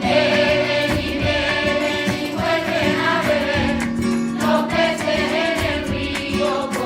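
A choir of voices singing a Spanish Christmas carol (villancico) over steady instrumental accompaniment.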